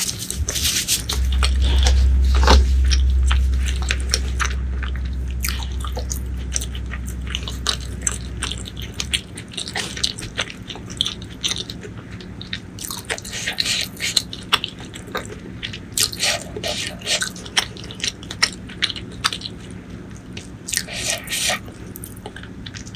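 Close-miked eating sounds: chewing with many short, wet mouth clicks and smacks. A low rumble is the loudest sound for the first several seconds and dies away about nine seconds in.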